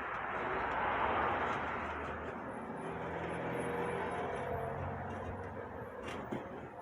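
A motor vehicle passing: engine and road noise swelling about a second in, then slowly fading, with a low steady hum.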